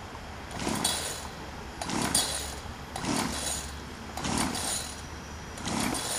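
25cc weed whacker engine being pull-started: five pulls on the recoil starter about a second apart, each a short whirring zip as the engine turns over without catching.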